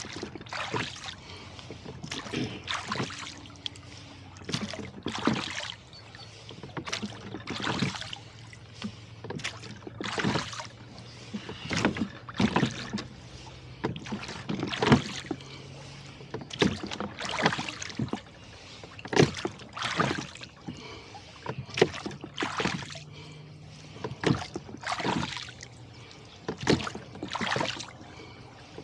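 Rowboat under oars: regular knocks and splashes of the oars at each stroke, about one stroke every two to three seconds.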